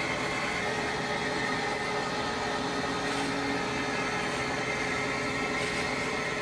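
Steady drone of running kitchen equipment: an even noise with a constant high whine and a lower hum, unchanging throughout.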